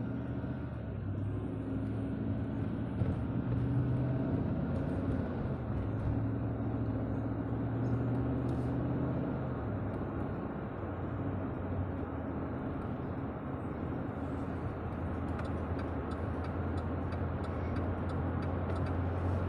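Car driving along a city road, heard from inside the cabin: a steady low engine hum over tyre and road noise.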